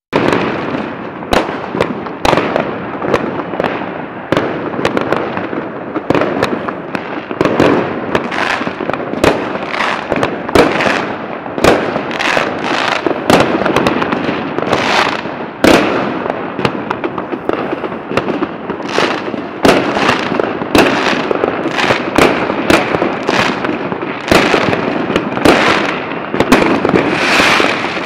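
Fireworks going off without a break: many sharp bangs and cracks, often several a second, over a continuous crackling haze.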